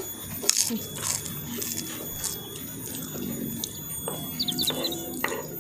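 Close-up crunching and chewing of fried kerupuk crackers eaten by hand, a few sharp crunches spread through the moment.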